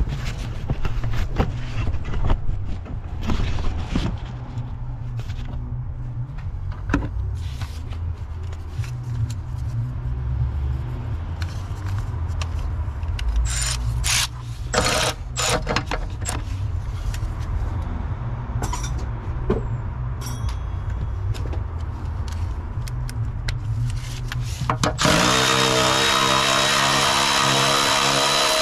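Scattered clicks and knocks of hand tools working on metal under the bonnet, then near the end a cordless electric ratchet starts up, its motor rising briefly in pitch and then running steadily.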